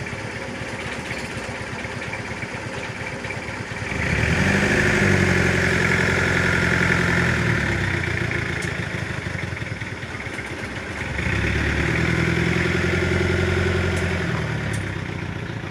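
A vehicle engine running at idle, twice speeding up to a higher steady pitch for three to four seconds before settling back.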